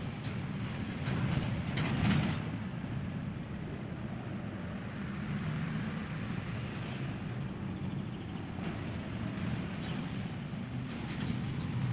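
Steady low engine rumble with wind noise on the microphone, swelling louder twice in the first two seconds.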